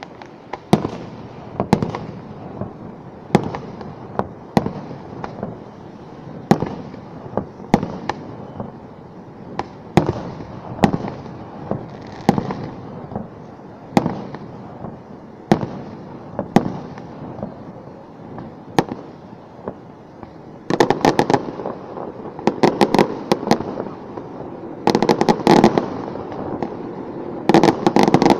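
Aerial fireworks shells bursting overhead, one sharp bang every second or two. In the last third, dense rapid strings of bangs come in two long volleys.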